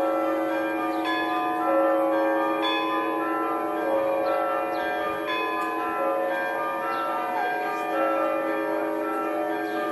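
Russian Orthodox church bells being rung (zvon). Several bells of different pitches are struck again and again in a repeating pattern, their tones ringing on over one another above a steadily sounding deeper bell.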